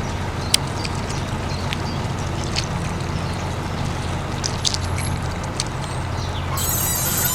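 Small electric motor of a DIY model tractor running steadily with a low hum, with scattered light clicks and taps. Near the end there is a brief high-pitched rattle.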